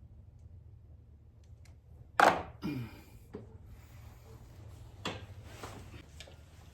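Knocks and clicks of tools and spark plugs being handled: one sharp knock about two seconds in, then a few lighter clicks.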